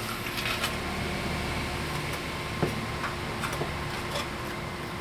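Light clicks and scrapes of chalk and a straight edge being worked on the concrete while a line is marked, a handful of short ticks scattered over a steady background hiss with a faint hum.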